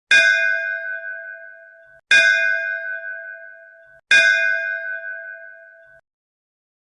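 A bell struck three times, about two seconds apart, each stroke ringing with several clear tones that fade and then cut off sharply just before the next.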